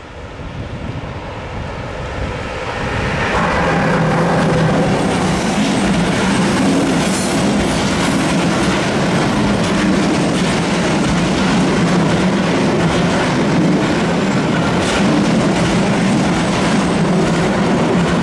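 Freight train hauled by a Siemens Vectron electric locomotive passing close by. It grows louder over the first few seconds, then the wagons run past in a steady loud rumble with repeated wheel clicks over the rail joints.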